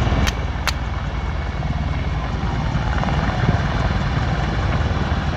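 Military helicopter hovering low, its rotor beating steadily. Two brief sharp clicks in the first second.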